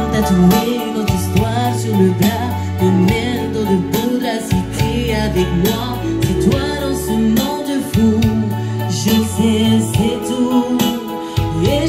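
Live amplified music: a woman singing over an electronic keyboard playing chords, a bass line and a steady beat.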